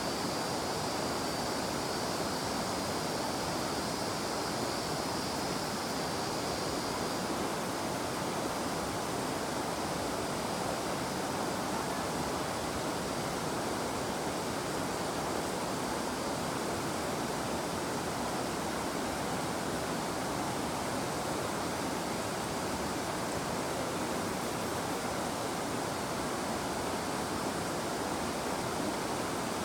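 River water running steadily over stones, an even rushing. A faint high cicada buzz sits above it and fades out about a quarter of the way through.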